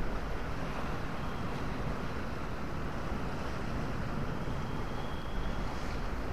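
Steady rush of wind buffeting the microphone, with sea surf washing underneath.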